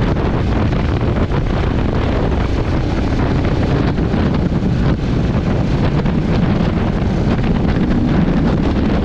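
Heavy wind buffeting the microphone of a motorcycle riding at steady speed, with the motorcycle's engine running steadily underneath.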